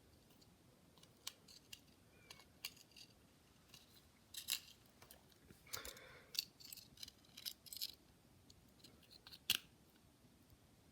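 Faint, irregular clicks and scrapes of small repair tools prying at an iPod Nano's battery and casing, about a dozen short contacts, the sharpest one near the end.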